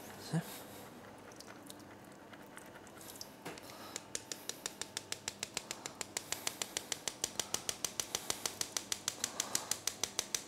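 Steady, rapid mechanical ticking at about five ticks a second. It starts about four seconds in and grows slightly louder, after a single soft knock near the start.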